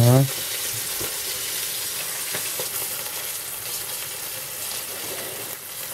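Small tugun fish frying in hot oil in a pan, a steady sizzle, with a few faint clicks of a fork against the pan as the fish are moved about.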